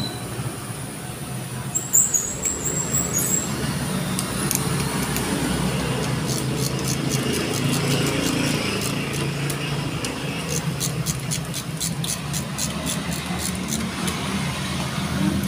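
Metal tool clicks, evenly spaced over several seconds, as a wrench is worked on the bolts of a motorcycle's front brake caliper. A steady low rumble runs underneath.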